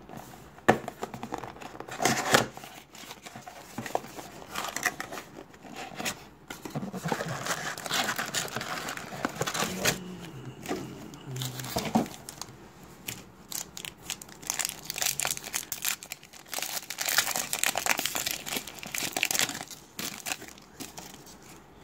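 Foil trading card pack wrappers crinkling and rustling in the hands in irregular bursts, with a pack being torn open.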